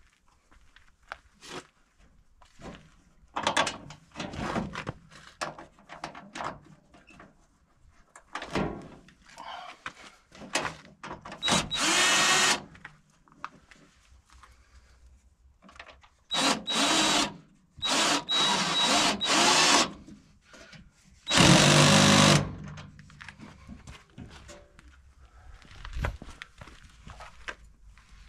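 Cordless drill-driver running in several short bursts of one to two seconds, its whine rising and falling as it drives bolts into the car's front panel. Short clinks and knocks of handled metal parts come in between.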